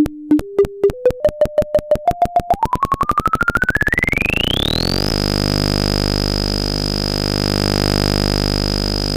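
Synthesized audio signal for drawing a mushroom on an XY oscilloscope: a train of clicks that speeds up into a buzz while its pitch climbs in steps, then glides smoothly upward. From about five seconds in it holds as a steady buzzy tone with a high whine on top.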